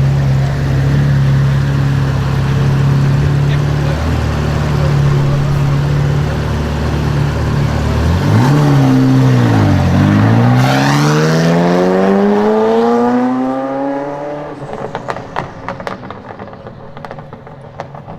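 Ferrari F40's twin-turbo V8 through a custom exhaust, running steadily, blipping briefly about eight seconds in, then accelerating hard with pitch rising for about four seconds. It then fades, with a scatter of sharp exhaust crackles and pops near the end.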